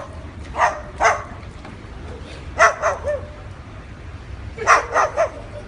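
A dog barking: about eight short barks in three quick groups of two or three.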